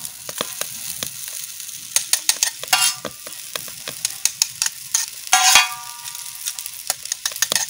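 Boiled noodles and vegetables sizzling in oil on a large iron tawa while being stir-fried, a utensil scraping and knocking against the pan many times. Two louder ringing scrapes come about three and five and a half seconds in.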